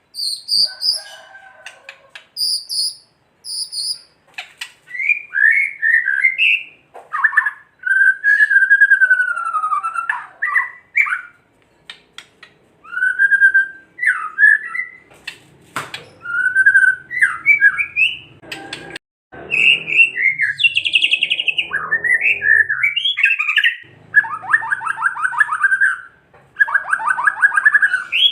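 White-rumped shama (murai batu) in agitated song: short high repeated notes at first, then loud whistled phrases gliding up and down, broken near the end by fast harsh rattling 'kretekan' calls, the fired-up sound used to provoke other shamas.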